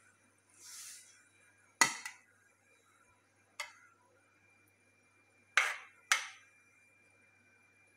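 Metal slotted serving spoon working biryani rice between stainless steel pans: a soft scrape of rice, then four sharp clinks of the spoon against the steel, the loudest about two seconds in and the last two close together near the end.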